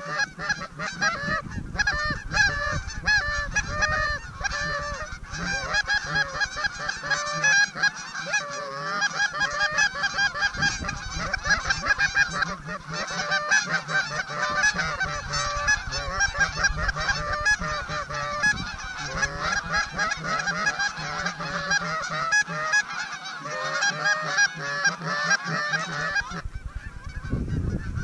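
Canada goose honks and clucks, many short calls overlapping in a dense, continuous chorus that thins out suddenly near the end.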